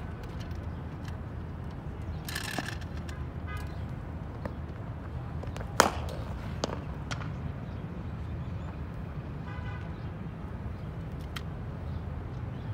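A cricket bat striking a ball in net practice, one sharp crack about six seconds in, with a few fainter knocks around it. A steady low rumble of traffic runs underneath, and faint horn-like toots come through twice.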